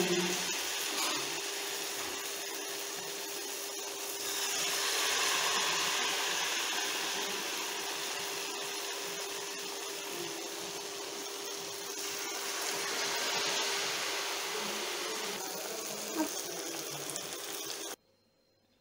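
Batter-coated banana slices (pazham pori) deep-frying in hot oil in a kadai: a dense, steady sizzle that swells and eases, with a faint steady hum underneath. It cuts off suddenly near the end.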